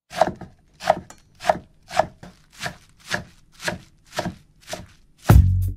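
A knife chopping on a wooden cutting board in a steady rhythm, nine strokes at a little under two a second. Music with a heavy bass beat comes in near the end and is the loudest sound.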